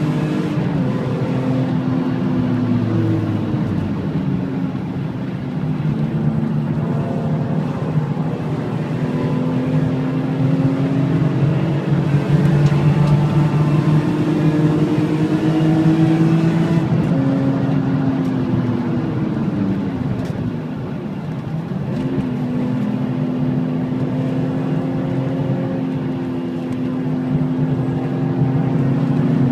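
BMW M3 E46's 3.2-litre S54 straight-six on track, heard from inside the cabin: engine note climbing under throttle, falling away twice as the car brakes and downshifts for corners, then pulling again.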